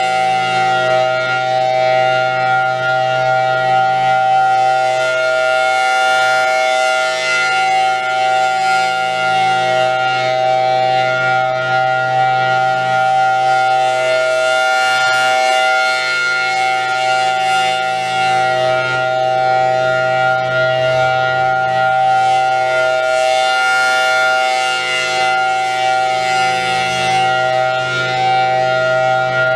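Thunderbolt 1000T outdoor warning siren sounding the steady alert tone. It holds one unchanging pitch, with its loudness and brightness swelling and fading slowly as the head rotates at 8 RPM.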